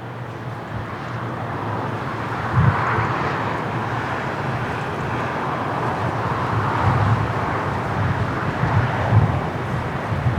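Airbus A321neo jet engines on approach, a steady rushing roar that swells slightly as the airliner comes in. Several low thumps of gusty wind buffet the microphone.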